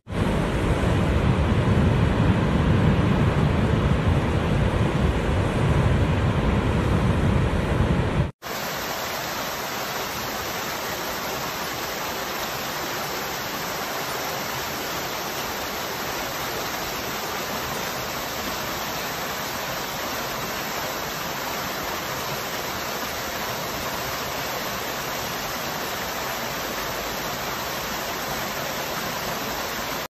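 Heavy low rumble of a large waterfall crashing into churning water, which stops abruptly about eight seconds in. It gives way to the steady, brighter hiss of a small waterfall splashing down rocks into a pool.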